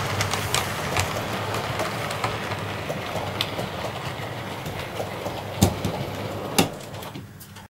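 Departing train hauled by a diesel locomotive, a steady low engine hum with wheels clicking over the rail joints and two louder knocks late on, fading away before cutting off.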